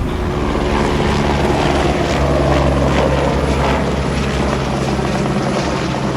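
Steady engine drone: a constant low hum with even overtones under a wash of noise, holding level throughout.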